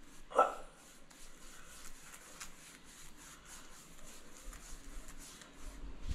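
Paint brush scrubbing wax onto a rough old wooden ceiling beam: faint, scratchy strokes repeating a few times a second. A short, sharp noise stands out about half a second in.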